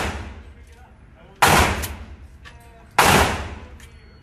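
Two loud gunshots about a second and a half apart, each ringing on with a long echo off the walls of an indoor shooting range.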